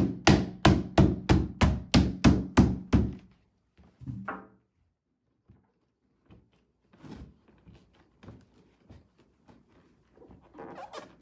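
A rubber mallet strikes a plastic brooder frame in an even series of sharp thunks, about three blows a second, for the first three seconds, driving the panel pegs home to lock the sections together. After that come a single knock and then lighter, scattered knocks of plastic panels being handled.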